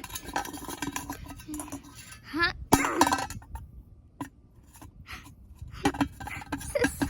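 Small hard toy figures clicking and clinking against each other in a play fight, with a couple of short vocal fighting noises about two and a half and three seconds in.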